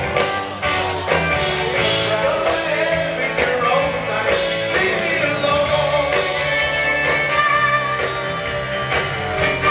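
Live rock band playing: grand piano, electric guitar, bass guitar and drums, with a lead vocal sung by the pianist.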